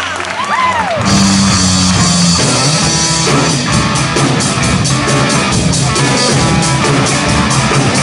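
Live rock band playing: electric guitar and drum kit come in loud together about a second in, with a steady beat. A few audience whoops come just before.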